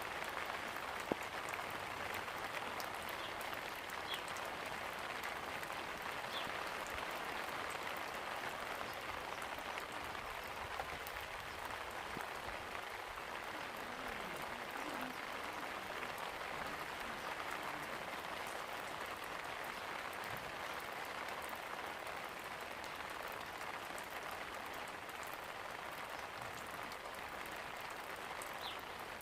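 Steady rain falling: an even hiss of many drops, with a few faint ticks of single drops here and there.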